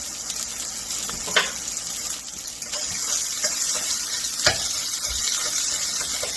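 Chorizo and vegetables sizzling in an oiled frying pan, a steady hiss, with two sharp clicks of a utensil against the pan.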